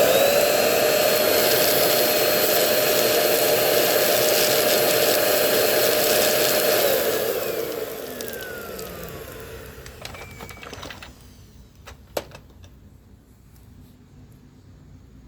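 Euro-Pro bagless stick vacuum switched on and running steadily with a high whine for about seven seconds, then switched off, its motor winding down and falling in pitch over a few seconds. A couple of clicks follow near the end.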